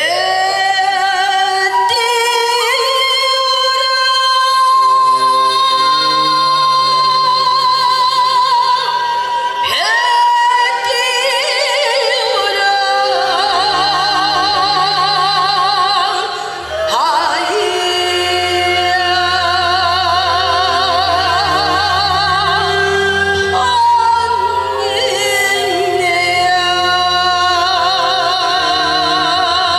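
A woman singing a Korean folk-style song in a pansori-trained voice with wide, heavy vibrato and long held notes, amplified through a microphone over a backing track with sustained low notes.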